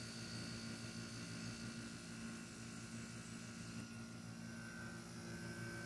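Mini-split outdoor unit running with a steady low hum as its compressor works while an undercharged system is topped up with refrigerant. A faint higher whine joins about four seconds in.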